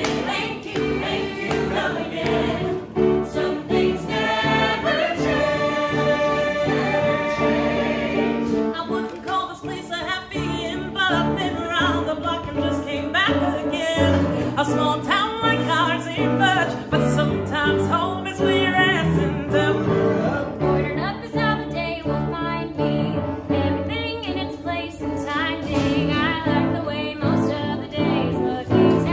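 Mixed ensemble of men's and women's voices singing a musical-theatre number together in harmony.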